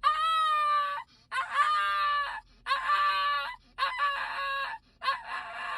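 An animal giving about five loud, drawn-out cries in a row, each about a second long, each with a slight fall in pitch.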